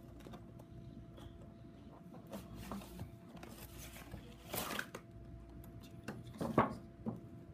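Cardboard box and plastic packaging being handled as a model locomotive is slid out: light rustles and small clicks, with two louder scraping rustles about halfway through and near the end, over a faint steady hum.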